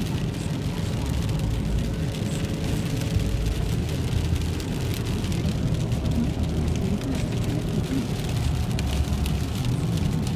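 Steady road noise inside a car driving on a wet highway in the rain: a low rumble of tyres and engine, with the hiss of spray and rain on the car.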